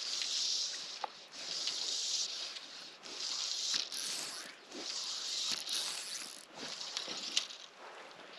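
Fly line being stripped in by hand through the rod guides, a rasping hiss in repeated pulls about every second and a half as a wet fly is retrieved.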